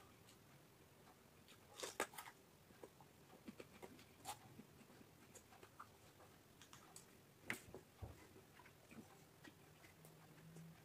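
Crisp crunches and clicks of raw vegetables being bitten and chewed, quiet and scattered, loudest about two seconds in and again past seven seconds.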